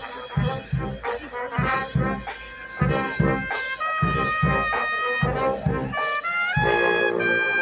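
Brass band playing a tune, trumpets and trombones carrying the melody over low, regular beats, then holding one long chord near the end.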